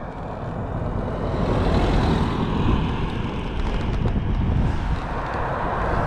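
Wind rush and road noise while riding a Zero 10X electric scooter, growing louder over the first two seconds and then holding steady.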